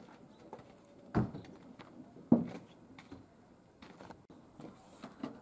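Scattered light knocks and clicks, with two louder thumps about a second and two seconds in.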